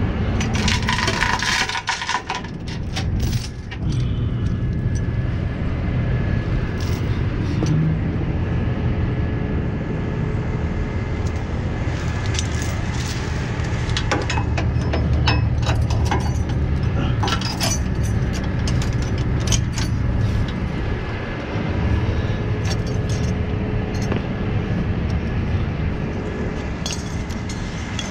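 Truck engine idling steadily while metal chains and hooks clink and rattle in bursts, near the start, through the middle and again near the end.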